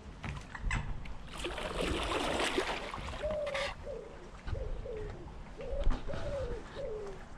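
Water splashing off a stand-up paddle for a couple of seconds. Then a pigeon cooing: a steady run of short, falling coos, roughly two a second.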